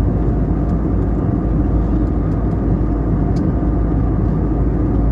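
Airliner cabin noise: a steady rumble of jet engines and rushing air, heard from inside the cabin.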